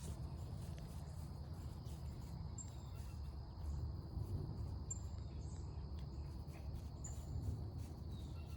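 Forest ambience: a steady, high insect drone with three short, high bird chirps about two seconds apart, over a low rumble.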